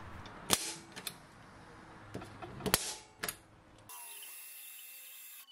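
Three sharp metallic taps of a hand tool on a steel plate, then a faint steady hum from about four seconds in.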